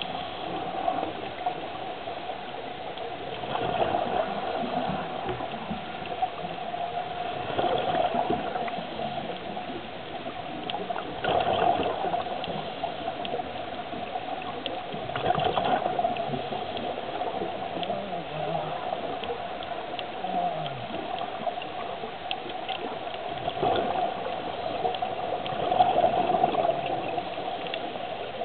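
Scuba diver's breathing through a regulator recorded underwater, exhaled bubbles gurgling out in surges about every four seconds over a steady hum.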